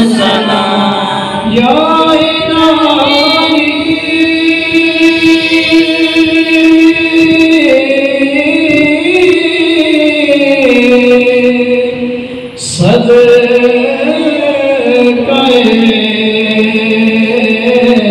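A man singing an Urdu salam (devotional praise of the Prophet) unaccompanied into a microphone, in long, drawn-out melodic lines, with one short pause for breath about two-thirds of the way through.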